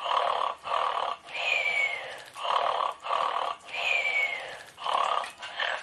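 Cartoon-style snoring. Each breath is a raspy snore in two pulls followed by a whistle that falls in pitch, repeating about every two and a half seconds.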